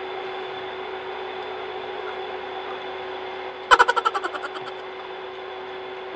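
Steady room hum with faint even tones. About three and a half seconds in, a person's short vocal outburst of rapid pulses fades away within a second, a reaction to the taste of grilled chicken intestine.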